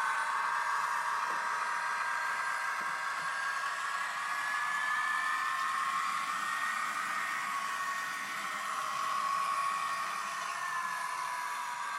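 Sound decoder of a Dapol N gauge Voyager model train playing its diesel engine and traction whine through a tiny speaker, over a steady hiss. The whine slowly rises in pitch, then falls again near the end.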